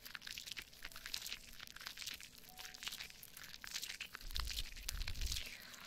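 Soap foam crackling and popping on the ears of a binaural dummy-ear microphone as fingers work the lather, a dense run of tiny pops. A low rubbing rumble of hands against the microphone comes in about four seconds in and lasts about a second.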